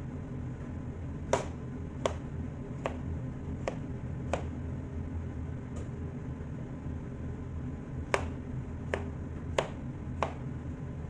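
Chef's knife cutting a peeled green squash on a plastic cutting board: about ten sharp knocks of the blade against the board, irregularly spaced, with a pause in the middle. A steady low hum runs underneath.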